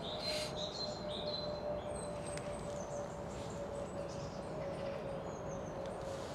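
Small woodland birds chirping, short high calls scattered through, over a steady hiss and a faint steady tone.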